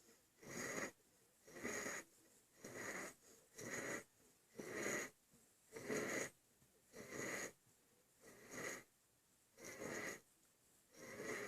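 Hard breathing in a steady rhythm, about one breath a second, each breath a short raspy rush of air.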